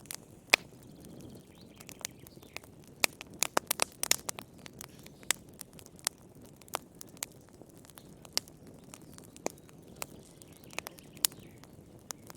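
Wood fire crackling in a fireplace: irregular sharp pops and snaps over a soft, steady hiss, with a loud pop about half a second in and a thick cluster of snaps around three to four seconds in.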